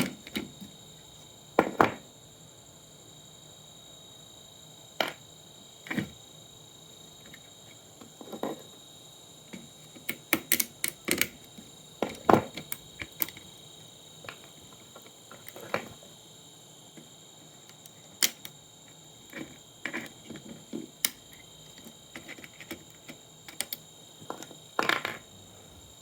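Irregular clicks, taps and knocks of tools and plastic and metal parts being handled while an old computer monitor is taken apart, with a quick cluster of clicks in the middle, over a faint steady high whine.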